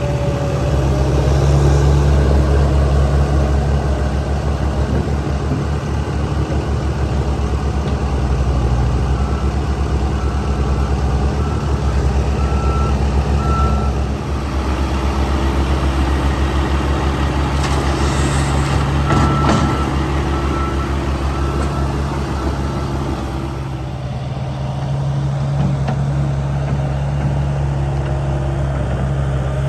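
Heavy diesel equipment engine running steadily. A backup alarm beeps at about one beep a second in two spells, first around a third of the way in and again around two thirds through.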